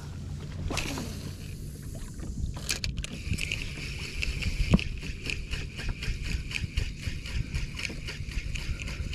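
Spinning reel being cranked to retrieve a cast lure: a rapid, even ticking whir from the reel's gears that starts about three seconds in and keeps on, over a low wash of wind and water against the kayak. A few sharp clicks come before the cranking.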